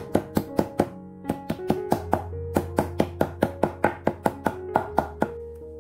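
Dried gardenia pods in a paper stock pouch being tapped on a wooden cutting board to crush them: quick sharp knocks, about four or five a second in short runs, stopping about five seconds in, over background music.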